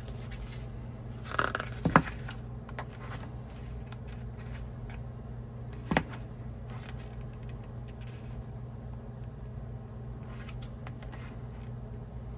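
Paper and cardboard of an album package being handled: soft page rustles and scrapes, with a few sharp taps about two seconds in and one near the middle, over a steady low hum.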